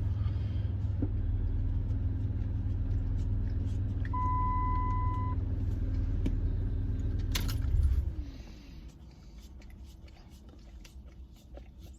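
A vehicle engine runs steadily for about eight seconds and then dies away, with a single steady beep lasting about a second partway through.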